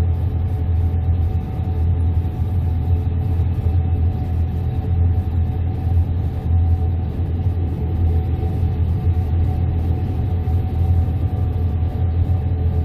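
Gleaner S98 combine running steadily while cutting wheat: a constant low drone with a faint steady whine above it.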